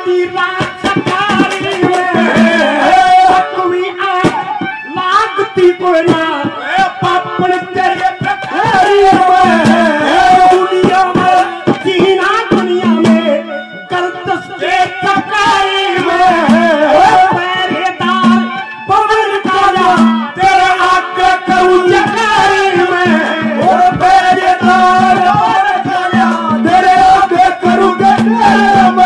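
Live Indian folk-band music: harmonium and a brass wind instrument play a shifting melody over a steady hand-drum rhythm.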